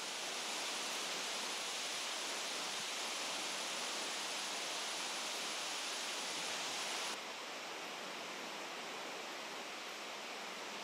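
A steady, even rushing noise that drops abruptly to a quieter, duller hiss about seven seconds in.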